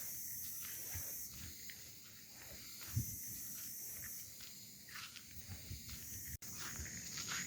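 Outdoor ambience: a steady high hiss with scattered soft low thumps, the loudest about three seconds in, and a brief dropout near the end.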